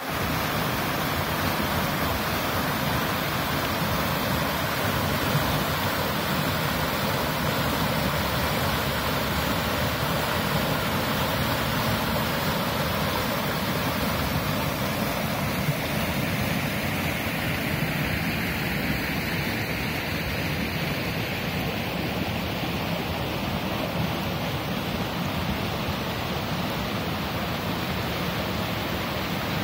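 Fast, muddy rocky stream rushing in white water over and around boulders: a steady, full rushing noise, easing slightly in the second half.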